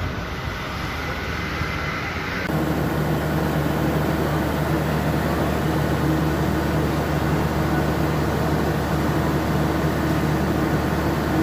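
Outdoor vehicle and street noise, then, after a cut about two and a half seconds in, a louder steady low mechanical hum with a few constant pitches.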